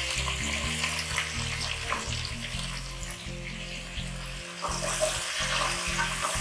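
Freshly added sliced onions sizzling in hot oil and ghee with whole spices in an aluminium pot, stirred with a wooden spatula.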